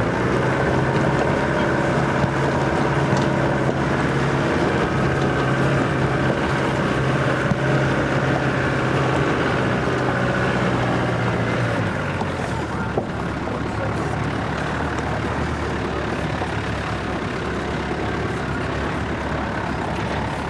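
Off-road vehicle's engine running steadily on a rough unsealed lane, with its note dropping lower about halfway through as it eases off.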